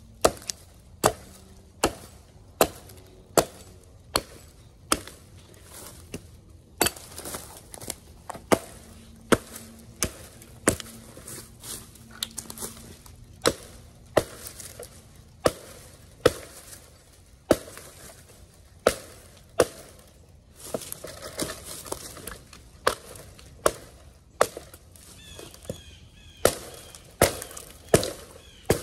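Adler Canoe Axe chopping limbs off a fallen tree trunk: a steady run of sharp axe strikes into wood, about one every three-quarters of a second, with a few short pauses.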